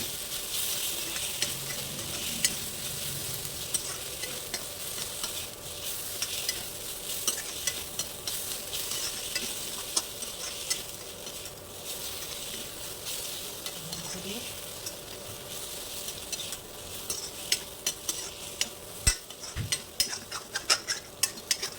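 Chopped onion, garlic, ginger, tomato and cashews sizzling in hot oil in a pan while being stirred, a steady frying hiss with the spatula clicking and scraping against the pan, the clicks coming thicker near the end.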